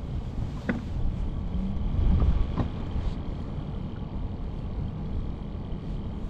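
Low steady rumble of wind and river water around a small fishing boat, with a few light knocks.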